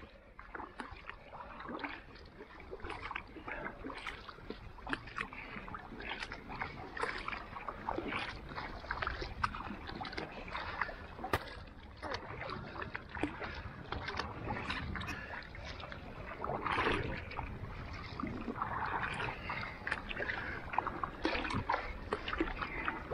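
Two paddlers driving a tandem inflatable kayak hard: quick, irregular paddle-blade strokes and splashes in the water, over a steady low rumble.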